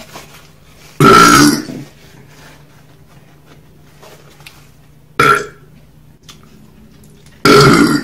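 A woman burping loudly three times: a long burp about a second in, a short one around five seconds, and another near the end.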